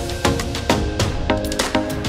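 Background music with a quick, steady drum beat and short repeated chords.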